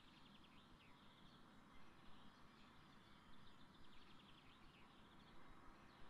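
Faint forest ambience: distant small birds singing, with two runs of quick high repeated notes and a few downward-sliding notes between them, over a low steady background hiss.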